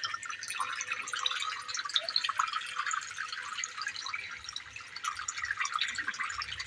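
Water trickling and splashing in many small, irregular drops from a homemade plastic-bottle waterfall fountain into the water below.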